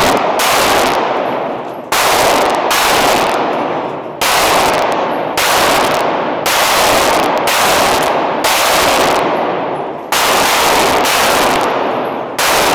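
A Glock 26 9mm pistol firing about a dozen shots at a steady pace of roughly one a second, with a few longer pauses. Each shot is sharp and loud and echoes away behind it.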